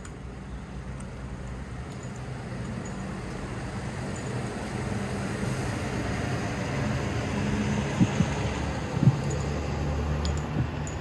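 Outdoor background noise: a steady rush and low rumble that slowly swells, with two short knocks a second apart near the end.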